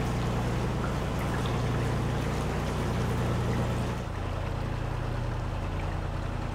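Narrowboat engine running steadily at cruising revs, a low even throb, with the wash of water under the boat. The engine note shifts slightly about four seconds in.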